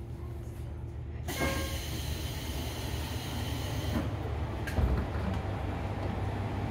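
Train entrance door sliding open about a second in, with a sudden rush of hiss and open platform noise. Under it runs the steady low rumble of the Yufuin no Mori diesel railcar standing at the platform.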